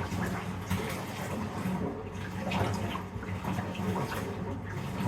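Bath tap running into the bathtub: a steady rush of water with a low hum underneath.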